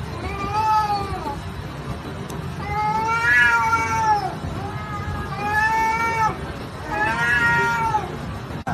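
A cat yowling: four long, drawn-out calls that rise and fall in pitch, protesting as a golden retriever holds and tugs it.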